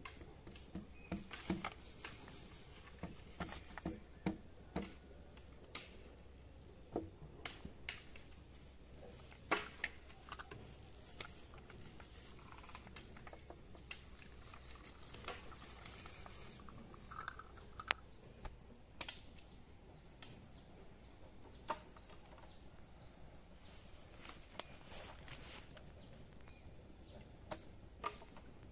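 Quiet outdoor background with scattered sharp clicks and knocks, and faint bird chirps; no chainsaw running.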